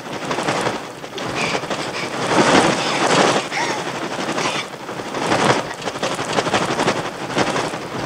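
A dense, rapid flutter of many birds' wings beating, with scattered short shrill bird cries over it, as in a swarming bird attack.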